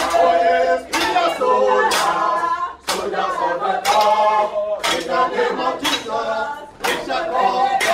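A group of voices singing together, with a sharp strike, such as a clap or a drum beat, about once a second.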